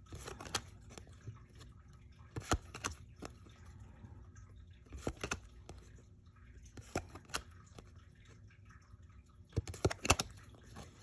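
Baseball trading cards being flipped through by hand, the stiff card stock sliding and snapping against the stack in sharp clicks, often in pairs, every second or two.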